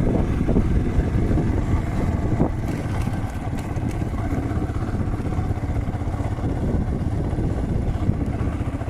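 Small farm-vehicle engine running steadily, like a farm motorbike, with a continuous low rumble.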